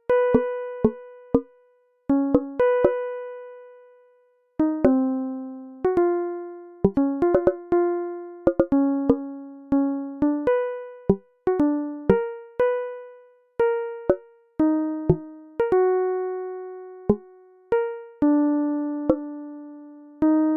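Background instrumental music: a slow, sparse melody of single keyboard-like notes, each struck and left to ring and fade, with light clicking accents between them.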